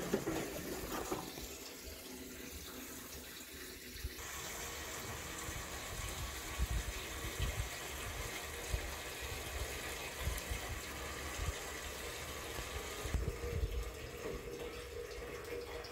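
Fuel pouring from a plastic gas can through a flexible spout into a tractor's fuel tank: a steady splashing flow that grows fuller about four seconds in.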